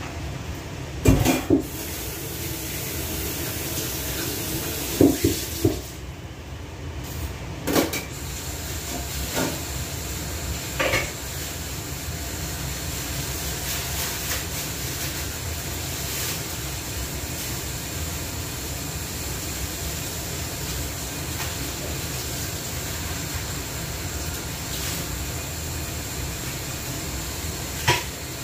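A steady rushing hiss in a kitchen, with a few knocks and clatters of things handled at the counter, the loudest about a second in and again about five seconds in.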